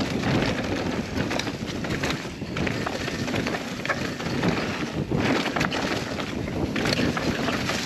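Mountain bike riding fast down a dirt forest trail: tyre rumble over the ground with frequent knocks and clatters from the bike over bumps, and wind buffeting the bike-mounted microphone.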